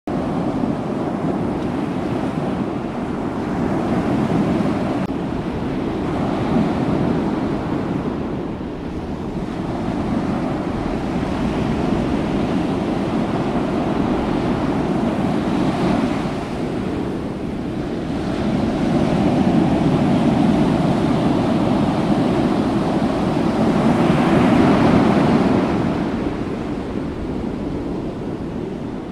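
Ocean waves surging and washing in a continuous rush, swelling and easing every few seconds, fading near the end.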